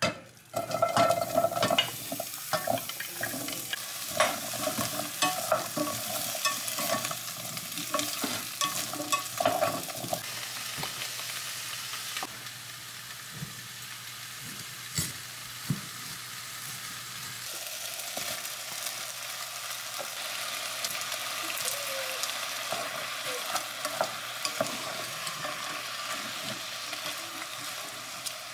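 Diced onion, carrot and potato dropped into hot oil in a pot, then frying with a steady sizzle and the clatter of stirring with a wooden spatula.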